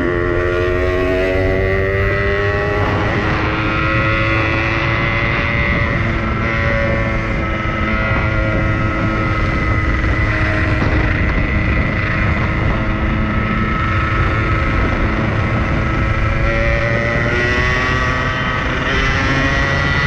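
Yamaha RX-King's 135 cc two-stroke single-cylinder engine running under way, heard from the rider's seat with wind noise. Its pitch climbs in the first second or so, holds fairly level while cruising, and climbs again near the end.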